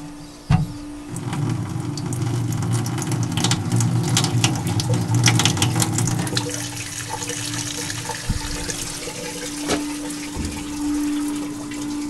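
Water running from an opened faucet for about five seconds, then dropping away to almost nothing: only the water left in the pipe drains out, because the supply line is frozen shut by a pipe freeze. A steady low hum runs underneath throughout.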